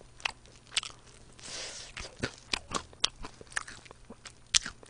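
Close-miked crunching and chewing of crispy fried chicken wings: irregular sharp crunches from the bites and chewing, with a short soft hiss about a second and a half in.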